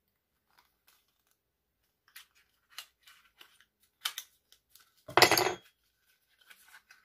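Small clicks and ticks of a plastic cosmetic cream pot and its packaging being handled, then a loud half-second scraping crackle about five seconds in as the stuck pot is worked open.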